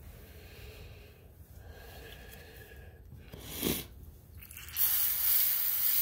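Aerosol cleaner can spraying in one steady hiss of about a second and a half near the end, with a shorter burst of noise about halfway through.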